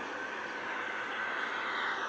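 A steady, noisy drone with a faint held tone, from a recording of an unexplained 'sky sound'.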